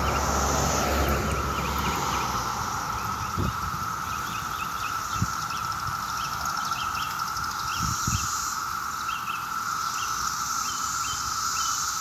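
Chorus of Brood X 17-year periodical cicadas: a dense, steady drone. Birds chirp over it again and again, and a car goes by in the first couple of seconds.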